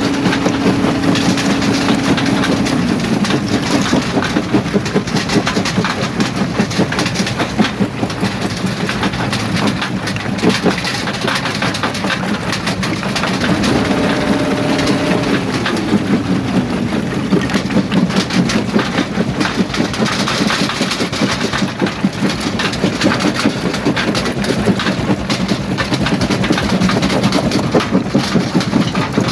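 Jaw rock crusher running, with rocks clattering and grinding through it over the steady hum of a heavy diesel engine. The engine note drops about two seconds in, climbs again about halfway through and falls back a couple of seconds later.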